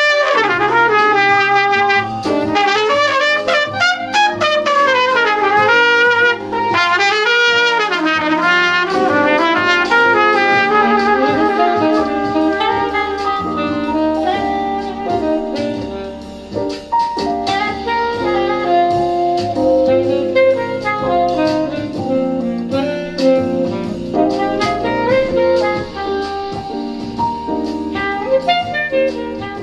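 Improvised jazz trumpet over a backing track with piano, playing quick runs and sliding phrases. About halfway through the trumpet stops and the backing track plays on, fading out near the end.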